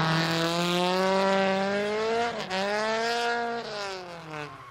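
Toyota AE86 Sprinter Trueno engine revving hard while the car drifts on a track. The pitch climbs, drops sharply about two and a half seconds in, climbs again, then falls away and fades near the end.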